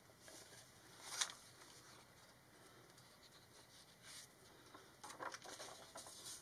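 Faint rustling and sliding of paper as a comic book is handled on paper sheets: a short sharp rustle about a second in, a small one near four seconds, and a cluster of rustles in the last second and a half.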